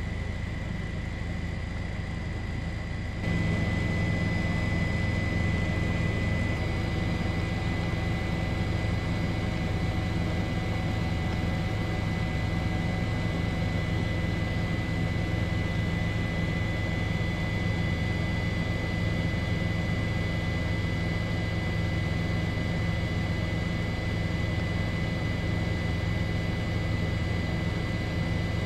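Steady helicopter engine and rotor noise with a constant high whine over a deep hum; it steps up in loudness about three seconds in.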